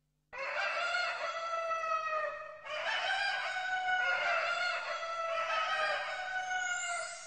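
A rooster crowing: long, drawn-out crows one after another, fading out near the end.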